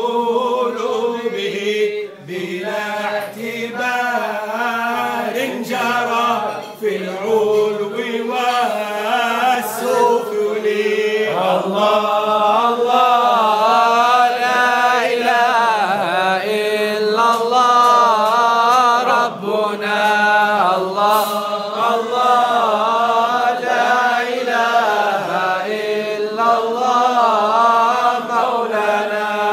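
Men chanting a devotional mawlid song in praise of the Prophet, a continuous sung melody that wavers up and down in ornamented turns.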